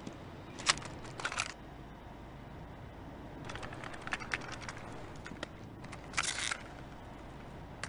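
Scattered short clicks and brief rustling bursts over quiet room tone: a couple about a second in, a run of light ticks in the middle, and one more burst near the end.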